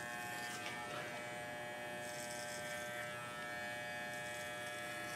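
WAHL Basic Pet Clipper running with a steady buzz as it is drawn down a Miniature Schnauzer's side, cutting through the coat.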